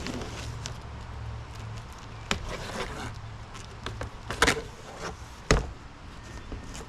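Several sharp knocks and thumps, the loudest two about four and a half and five and a half seconds in, from handling and opening the big cardboard shipping box of a steel mobile workbench, over a low steady rumble that stops about four seconds in.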